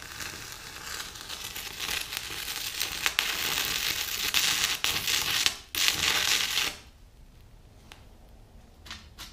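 Stick welding arc on a 6011 electrode from an Amico Power Arc160D welder, a steady crackling hiss that breaks off briefly about five and a half seconds in, catches again, and stops near seven seconds. A few faint clicks follow.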